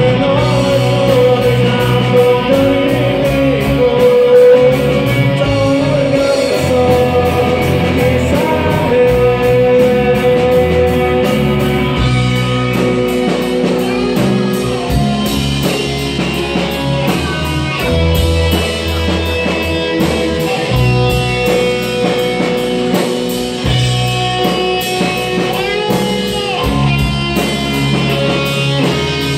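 A rock band playing live, with electric guitar and drums behind a lead singer, recorded loud from the audience.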